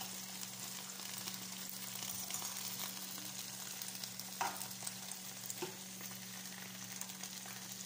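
Leafy greens sizzling in hot oil in a nonstick frying pan, turned over with a metal fork, which clicks against the pan a couple of times around the middle.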